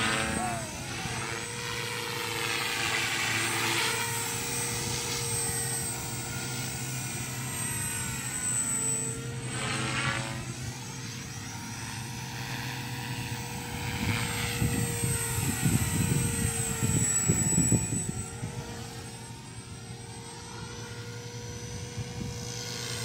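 Walkera V450 D03 electric flybarless RC helicopter flying: a steady whine of its brushless motor and rotors, sweeping as it passes to and fro. A rough low rumble rises about fourteen seconds in and fades a few seconds later.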